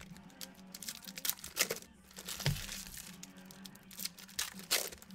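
Wrappers of Donruss basketball card packs crinkling and tearing as packs are ripped open, a run of short sharp rustles and snaps with cards being handled. Faint background music plays underneath.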